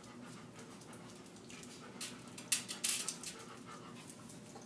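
Wet chewing and lip-smacking from a large mouthful of Skittles, with a cluster of sharp smacks about two and a half seconds in.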